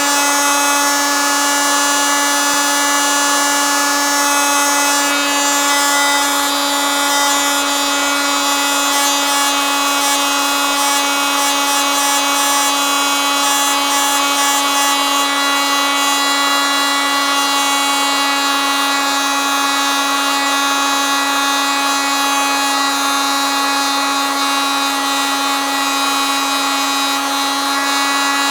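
Oscillating multitool running steadily at one constant speed: an unchanging buzzing hum with a strong single pitch and many overtones.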